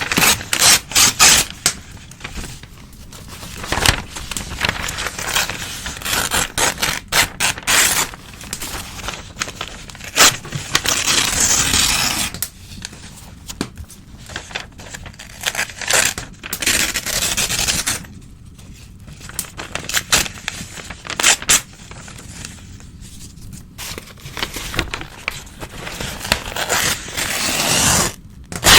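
Old newspaper being torn by hand: a series of rips, some short and sharp, others drawn out over a couple of seconds, with rustling of the paper between them.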